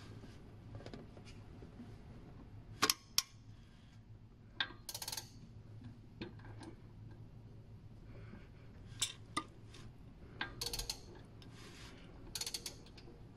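Toyota 1AZ-FE timing chain tensioner ratcheting as the engine is turned over by hand: sharp metallic clicks as its hook releases and the plunger steps out to set the chain tension. The clicks come irregularly, some single and some in short rapid runs.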